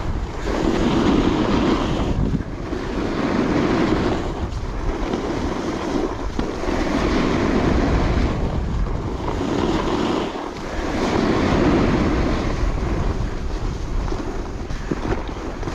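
Alpine snowboard carving groomed snow: the edge hiss swells and fades with each turn, about one turn every two seconds, with wind rushing over the chest-mounted camera's microphone.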